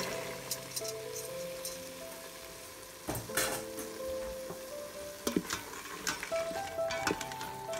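Beans poured into a hot stainless steel pot of sizzling tomato and onion, then stirred in with a wooden spatula that scrapes and knocks against the pot. Light background music with plucked notes plays throughout.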